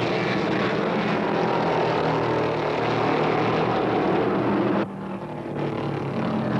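A pack of early-1970s NASCAR stock cars with V8 engines running at full throttle, their engines blending into one dense drone. About five seconds in the sound drops suddenly to a quieter, more distant engine drone, which builds again near the end.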